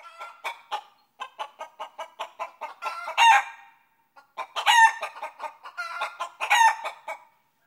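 Hen cackling: a fast run of short clucks broken by three louder calls, about three seconds in, just after a brief pause and again near the end.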